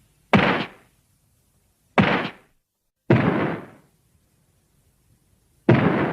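Four short, sharp impact sound effects, each a hard hit that dies away within about half a second, with gaps of one to two and a half seconds between them.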